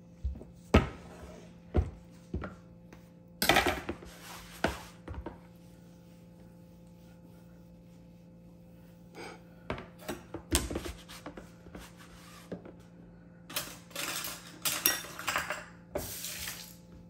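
Kitchen utensils and cookware being handled: scattered sharp knocks, clinks and short clattering in a few clusters, with a quiet stretch in the middle, over a faint steady hum.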